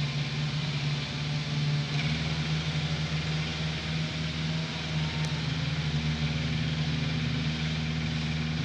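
An engine running steadily at a constant speed, an even hum with no change in pitch.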